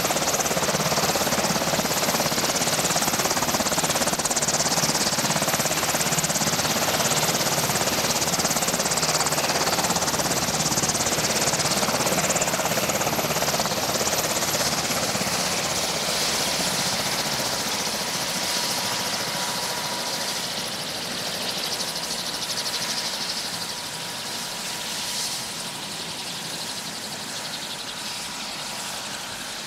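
VH-60 Night Hawk (Sikorsky Black Hawk) helicopter sitting on the pad with its rotor turning. The rotor rush and high turbine whine of its twin turboshaft engines slowly wind down: the whine drops in pitch about halfway through and the noise fades gradually toward the end.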